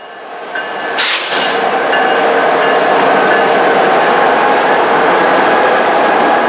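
Freight train's double-stack intermodal well cars rolling past: a steady rumble and clatter of wheels on rail that builds over the first second, with a sharp burst of noise about a second in.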